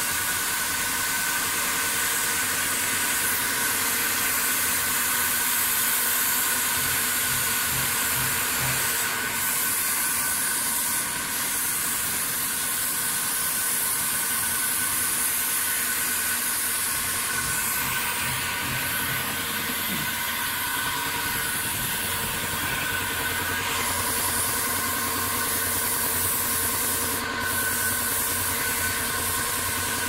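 Compressed-air paint spray gun hissing steadily as paint is sprayed onto concrete rock work, with a steady machine hum underneath.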